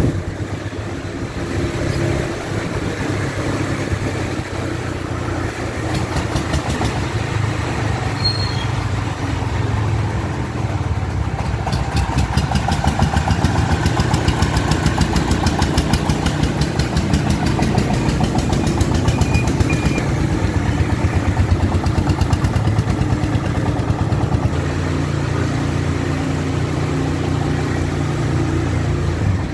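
Công nông farm truck's single-cylinder diesel engine running steadily with a chugging beat as the loaded truck drives along. The chugging grows louder and plainer from about twelve seconds in, then eases off again near twenty-four seconds.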